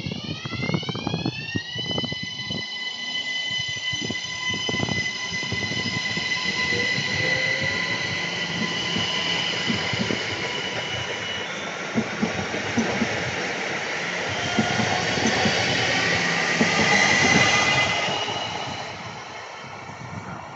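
Train passing at speed. A whine climbs in pitch over the first couple of seconds, then holds steady. Wheel and rail noise builds to its loudest a few seconds before the end and then fades.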